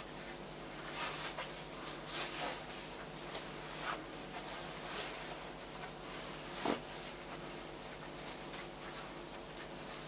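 Cloth rustling and swishing as a men's obi is wrapped and pulled tight around a silk kimono, in soft uneven strokes with one sharper brush about two-thirds of the way through.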